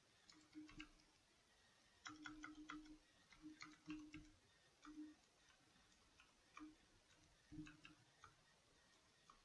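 Faint computer keyboard typing: irregular key clicks, with a quick run of keystrokes about two seconds in, then smaller clusters and single presses.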